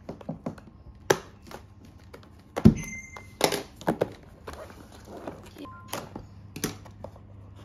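A cardboard box being slit with a utility knife and handled on a tabletop: a string of short clicks, scrapes and knocks, with a loud thunk about two and a half seconds in.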